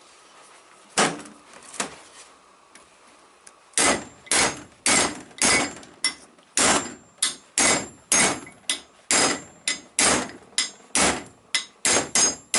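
Hammer blows on a driver, knocking a new small-end bushing into the heated connecting rod of a GAZ-53 engine. Two light taps come about a second in, then from about four seconds in a steady run of ringing metallic strikes, about two a second.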